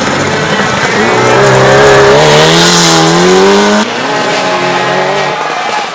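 Rally car engine revving hard at speed, its pitch climbing for a few seconds, then dropping off sharply about four seconds in as the driver lifts or shifts. A lower, steadier engine note follows and fades out near the end.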